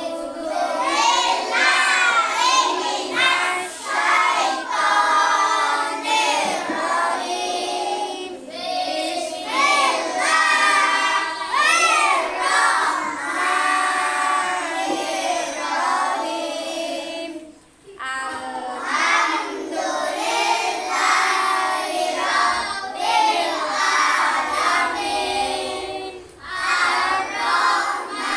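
Children singing in a high, melodic chant, with short breaks about 18 and 26 seconds in.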